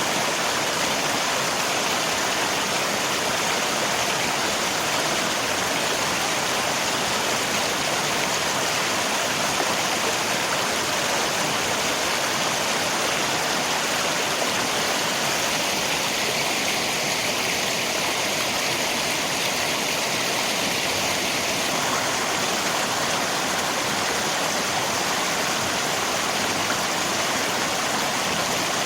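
Steady rushing of river water mixed with falling rain, an even, unbroken hiss.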